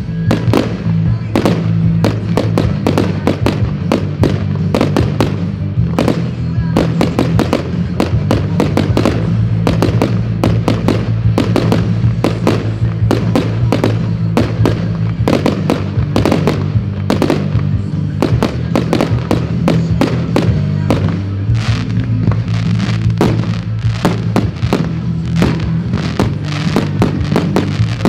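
Fireworks going off in a dense, unbroken barrage, many sharp bangs a second, heard from about 60 m away, with music playing steadily underneath.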